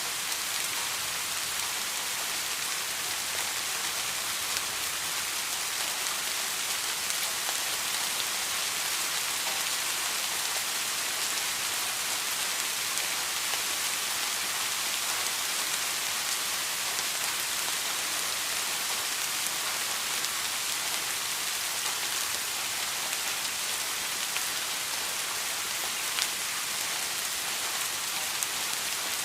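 Steady rain falling and pattering on surfaces, with scattered individual drops ticking through the even hiss.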